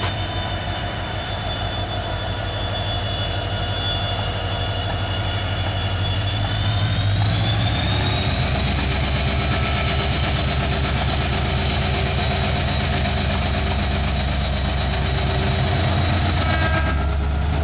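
WDP4D diesel locomotive running as it draws its train slowly in, a deep engine rumble under a high whine. About seven seconds in, the whine rises in pitch and the rumble changes.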